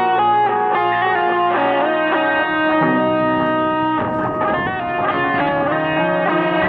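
Electric guitar played through effects, many sustained notes overlapping into a dense, steady wash as the melody shifts.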